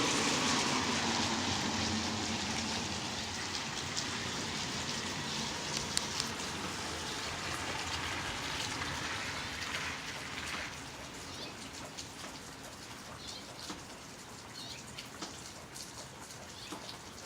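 Rain falling during a thunderstorm, heavier at first and easing noticeably about ten seconds in, with individual drops ticking close by throughout.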